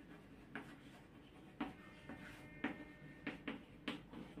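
Chalk writing on a blackboard: a string of faint, short taps and scrapes at irregular intervals as the letters are formed.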